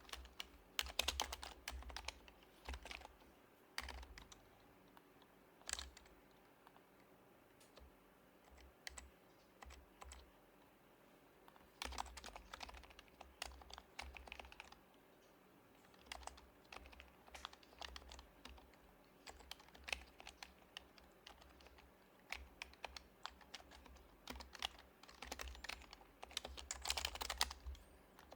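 Typing on an HHKB Professional HYBRID Type-S keyboard with silenced Topre capacitive switches. The keystrokes come in bursts of fast runs separated by pauses of a few seconds, with the densest runs near the start, about twelve seconds in, and near the end.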